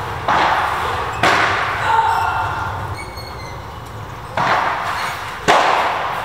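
Padel ball hits: four sharp pocks of racket on ball and ball on court, two about a second apart, a pause of about three seconds, then two more, each ringing on under the tented hall's roof.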